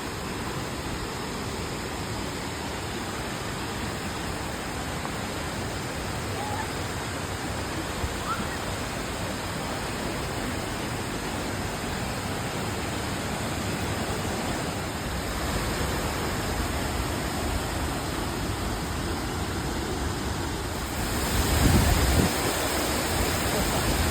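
Steady rushing of a waterfall, a constant even roar that grows louder in the last few seconds, with a short low surge about three-quarters of the way through.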